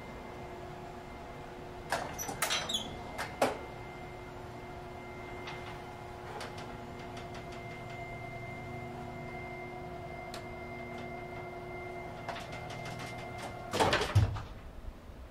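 A 1919 Graves freight elevator car running in its hoistway: a steady hum with several held tones from the drive, broken by sharp clicks and clanks about two to three seconds in. About fourteen seconds in there is a cluster of clanks and a low thump, and the hum then drops away as the car stops at a landing.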